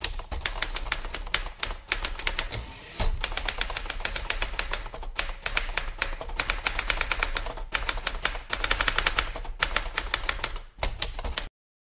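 Typewriter typing sound effect: a rapid run of key strikes with a few brief pauses, cutting off abruptly shortly before the end.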